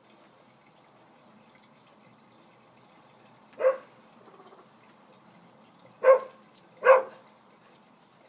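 A dog barking off-screen: three short single barks, the first about halfway through and two more close together near the end.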